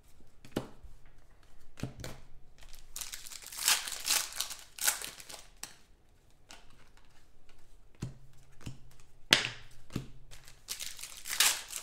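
Hands handling sports trading cards and a foil card-pack wrapper: rustling and crinkling, loudest about three to five seconds in and again near the end, with a few sharp clicks.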